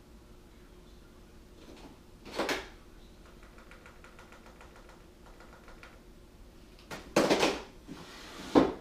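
Rummaging in a kitchen drawer: objects clunk and clatter against each other, with a light rattling in the middle, the loudest clatter about seven seconds in and a sharp knock near the end.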